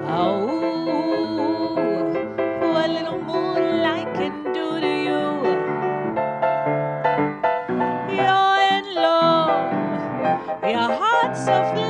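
A woman singing with vibrato over piano accompaniment.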